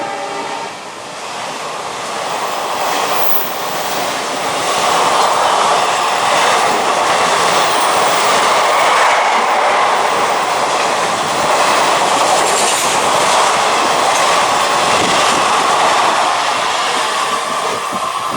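Indian Railways express train passing close by at speed: a loud rushing rattle of coaches with wheels clattering over the rail joints. It grows louder over the first few seconds and then holds, just after a horn blast dies away at the very start.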